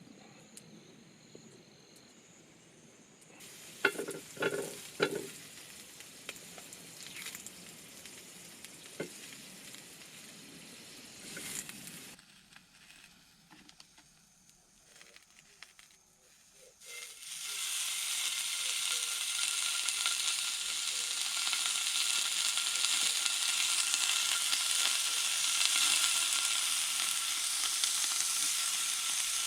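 Food sizzling in a frying pan, a steady hiss that starts a little past halfway and keeps going. Before it come a few short knocks and clatters of handling.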